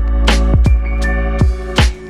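Background electronic music with deep bass, kick drum hits and held synth notes; the bass drops out near the end.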